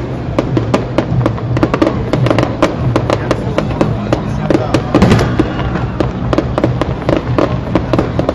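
Fireworks display: a dense, rapid run of bangs and crackles with no pause.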